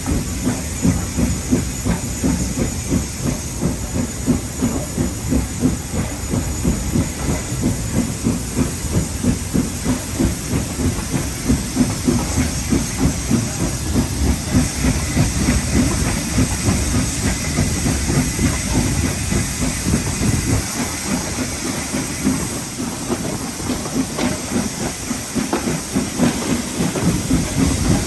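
Steam locomotive working a train, heard from on board: a steady run of regular exhaust beats with hissing steam over the rumble of the carriages on the rails.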